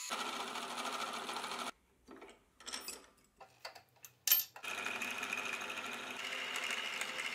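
Bench drill press running, its bit cutting into a small metal bar. The run breaks off about two seconds in, and there are scattered light clicks and knocks and one sharp clink as the bar is handled. The drill press comes back, running steadily through the end.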